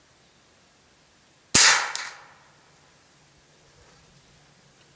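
A single shot from a Hammerli .22 air rifle about a second and a half in: a sharp crack that dies away within a second, followed by a faint short click.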